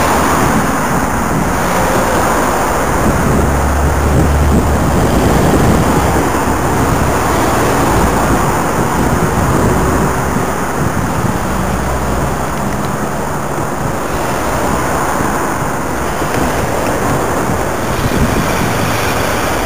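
Wind rushing over the microphone of a camera on a moving bicycle, a steady loud rush, with motor traffic passing close alongside on the road.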